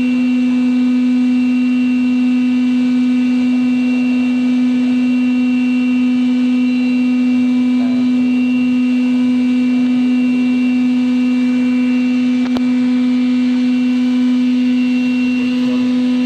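Lathe running steadily: a loud, constant hum with a higher whine above it, and a single brief click about three quarters of the way through.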